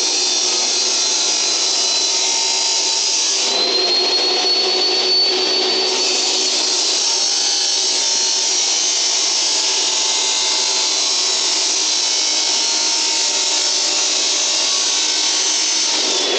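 Electric saw cutting through steel pipe: a loud, steady motor whine with cutting noise, which changes briefly a few seconds in and falls in pitch near the end as the saw winds down.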